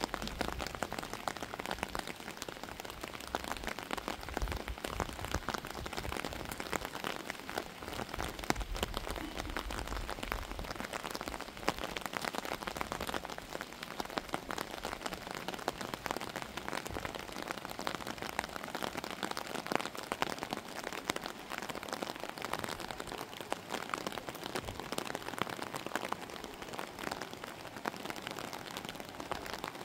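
Steady rain falling, a dense even hiss made of countless individual drop hits.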